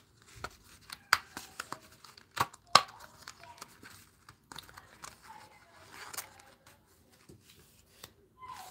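A die-cut cardstock heart being pushed out of its sheet, the paper tearing at its small holding tabs with a few sharp snaps and the rustle of the sheet being handled. The loudest snaps come a little past two seconds in.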